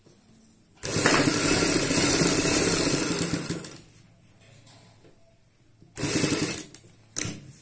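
Sewing machine stitching a seam through fabric and piping cord: one run of about three seconds that starts about a second in and slows to a stop, then two short bursts of stitching near the end.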